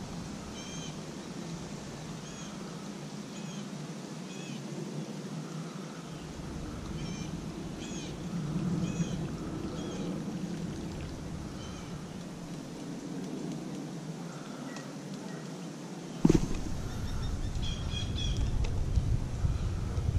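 Birds calling in short, repeated high notes over wind noise on the microphone, with one sharp knock about sixteen seconds in.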